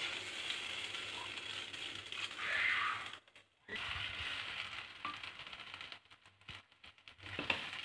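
Wooden spatula stirring and scraping thick ground-rice batter against a stainless steel pot, with the batter sizzling on the heat as it cooks down into dough. The sound cuts out briefly about three seconds in and again around six seconds in.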